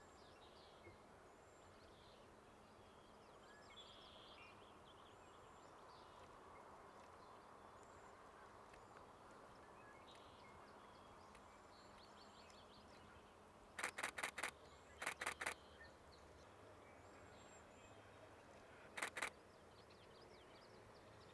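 Nikon Z6 II camera shutter firing in short bursts of rapid clicks: four, then four more a second later, then two about four seconds after that. Faint high bird calls sound behind it.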